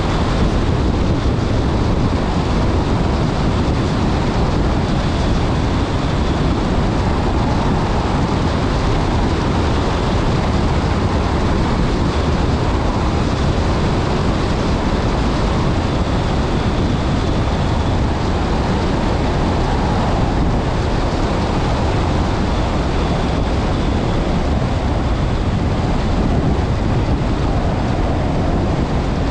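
Rally car at speed on a loose gravel stage, heard from its onboard camera: a steady, loud wash of engine, tyres on gravel and wind noise on the microphone.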